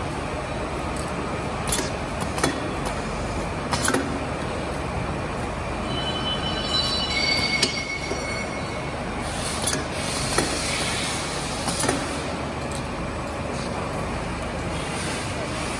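Automatic carton packing machine for wrapped bouillon cubes running: a steady mechanical clatter with sharp metal clacks now and then, and a brief high squeal near the middle.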